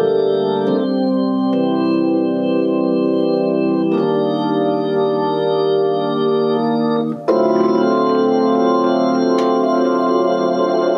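Hammond organ played through a rotating Leslie speaker: sustained chords that change three times, about a second, four seconds and seven seconds in, with a steady wavering from the spinning rotors.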